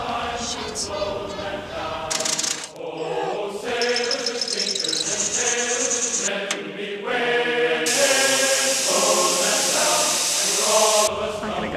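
Background music: a melodic tune of held pitched notes laid over the work, with a high hiss in its last few seconds.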